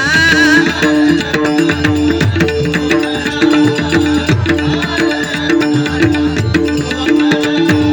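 Instrumental interlude of a devotional bhajan: hand drums play a fast, steady rhythm under a repeating melodic phrase, after the last held note of the singer fades about half a second in.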